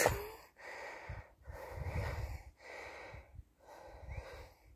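Breathing close to a phone microphone: about five even, hissy breaths, with faint low handling rumble underneath.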